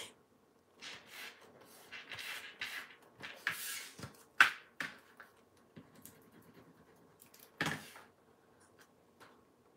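Cardstock box pieces being handled: short papery rustles and scrapes of card sliding against card and the tabletop for the first few seconds, then a single light knock as a box piece is set down.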